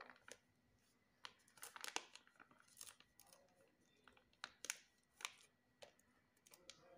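Clear plastic bag of plaster powder crinkling in the hands as powder is tipped out of it into a plastic dish: faint, scattered crackles, the loudest about two seconds in.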